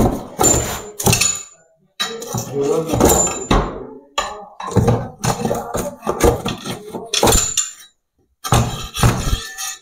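Repeated knocks, bangs and clattering as a built-in cupboard is broken apart, several strikes a second with two brief breaks.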